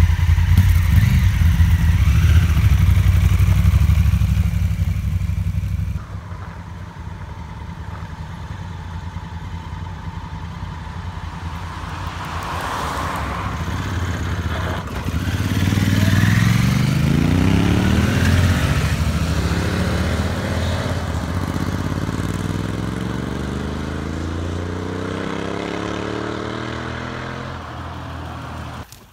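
Honda Africa Twin parallel-twin motorcycle engine idling. After a cut, adventure motorcycles pull away, their engine pitch rising steadily as they accelerate.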